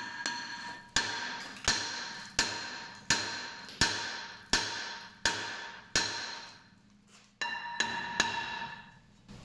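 A hammer striking a seized rear brake rotor on a Ram 1500, about a dozen blows roughly one every 0.7 s with a short pause past the middle, each hit leaving the rotor ringing like a bell. The rotor is rusted fast to the hub and is not coming free.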